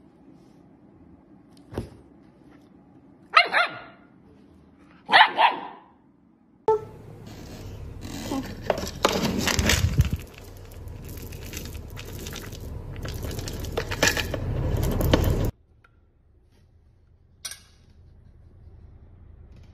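A dog barking, a few short single barks spaced a couple of seconds apart, then several seconds of louder noisy sound that starts and stops abruptly.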